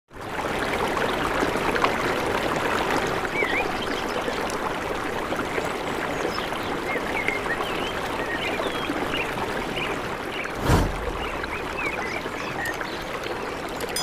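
A small rocky stream running and splashing over stones, with birds chirping in short calls over the water. There is one brief low thump about ten seconds in.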